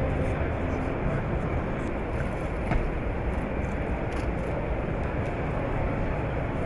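Steady background noise of a crowded exhibition hall: a low, even rumble of crowd and hall ventilation, with one faint click about two and a half seconds in.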